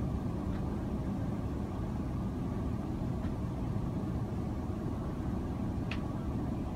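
Steady low rumble of aircraft cabin noise, engines and airflow heard from inside the cabin during the descent. One faint click near the end.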